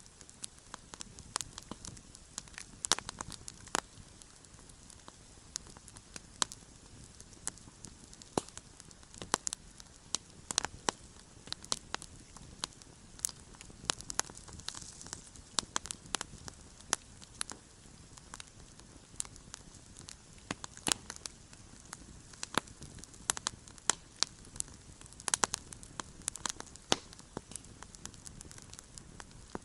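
Wood campfire burning, with frequent irregular sharp crackles and pops over a soft steady hiss.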